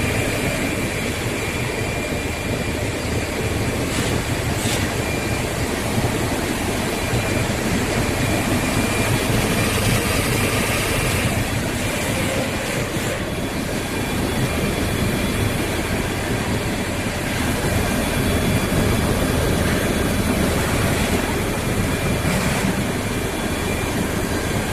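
Plastic pulverizer running, milling plastic into 20-mesh powder: a steady mechanical rushing and rumbling with a thin, high steady whine over it.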